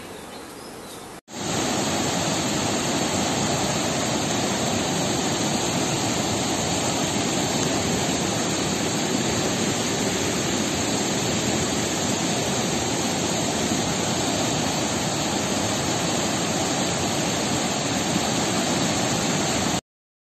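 Floodwater of a swollen river rushing and churning: a loud, even rush that starts sharply about a second in, after a softer stretch of water noise, and cuts off suddenly near the end.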